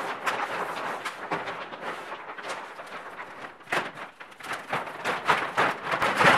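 Large plastic dust-collector bag crinkling and rustling as it is handled and pulled into place, an uneven crackle with louder rustles about four seconds in and again near the end.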